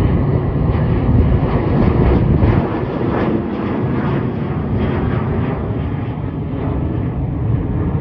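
Jet engines of a departing Alaska Airlines Boeing 737 climbing overhead: a loud, steady rumble that eases slightly about two and a half seconds in.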